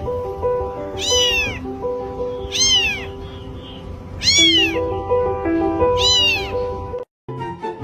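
A cat meowing four times: short, high-pitched meows that rise and then fall in pitch, spaced about one and a half seconds apart, over background music with a simple melody.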